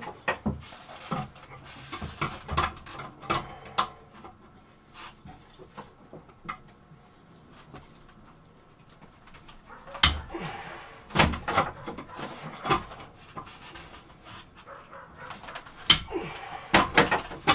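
A PEX crimping tool being worked onto fittings in a cramped space: repeated clicks and knocks of the tool's jaws and handles against the pipe and fittings, with several louder knocks after the middle. Heavy breathing from the effort is heard over it.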